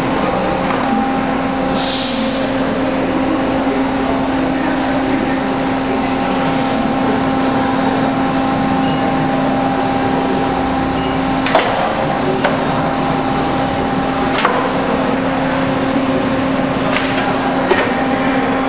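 Steady hum of the Pines AD 35 CNC tube bender's hydraulic power unit running. A brief hiss comes about two seconds in, and a few sharp clicks or knocks come in the second half.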